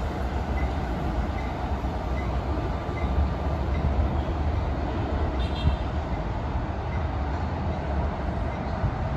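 NJ Transit commuter train running on the tracks, a steady low rumble with no horn or sharp impacts.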